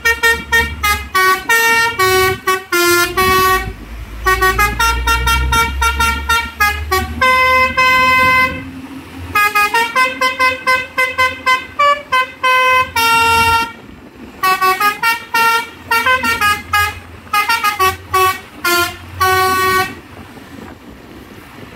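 Telolet basuri horn on a cement mixer truck playing a quick melody of short, loud air-horn notes in phrases with brief pauses, the truck's engine running underneath. The horn stops about twenty seconds in.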